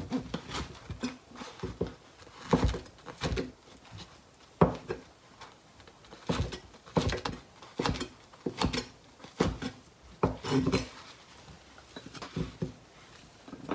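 Kitchen knife cutting through aburaage (deep-fried tofu) and striking a plastic cutting board: a slow, irregular series of cuts, roughly one a second.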